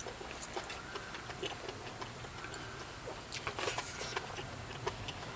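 Close-miked eating: a person chewing a mouthful of hot-pot food, with many small wet clicks and smacks, and a short breathy sound about three and a half seconds in.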